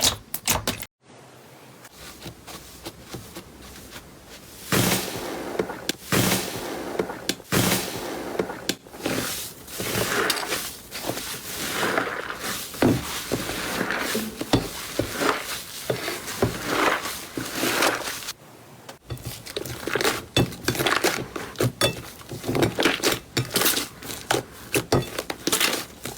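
Slime being squeezed and pressed by hand, giving a dense run of sticky crackles and pops, with abrupt changes about a second in and again near the two-thirds mark.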